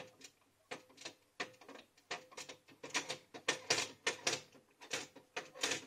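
Rapid, uneven mechanical clicking from a Xerox WorkCentre 6015 laser printer, about four to five clicks a second, with a faint steady hum beneath.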